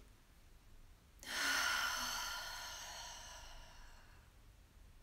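A woman's long, slow breath out through the mouth, a soft airy hiss that starts suddenly about a second in and fades away over about three seconds: a deliberate calming exhale.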